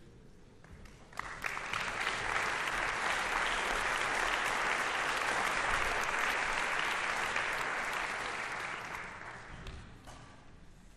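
Audience applauding: it starts suddenly about a second in, holds steady, and dies away near the end.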